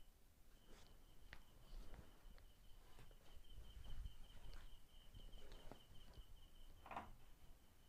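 Near silence: faint room tone with a thin, high, pulsing tone and a few faint scattered clicks, the clearest about seven seconds in.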